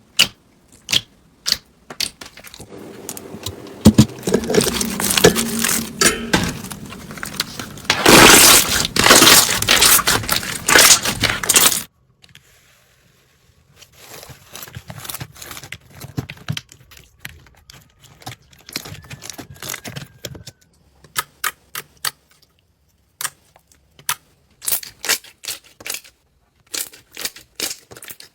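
Slime being handled: a run of sharp, sticky clicks and pops, with a dense, loud stretch of crackling for a few seconds in the first half. After a short break the clicks and pops come again, more scattered and quieter.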